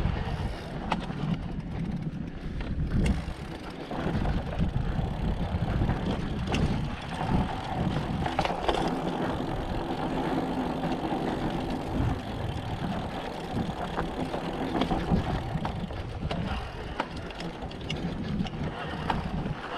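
Mountain bike rolling over slickrock: a steady low tyre rumble with frequent clicks and rattles from the bike.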